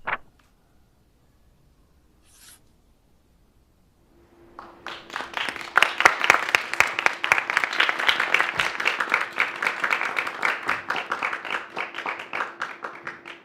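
A single sharp click at the start. About four seconds in, a small group begins clapping; it swells quickly into steady, lively applause.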